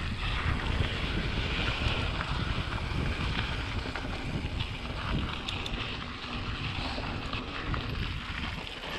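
Mountain bike rolling fast down a loose dirt trail: steady wind rumble on the microphone over the hiss of knobby tyres on dirt and gravel, with a few small clicks and rattles from the bike.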